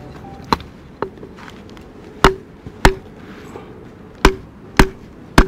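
Unsharpened Ultra Natura camp hatchet striking the top of a split piece of firewood: two light taps, then five hard knocks, each with a brief ring. The blade has no real edge straight from the box, so it glances off rather than biting into the wood.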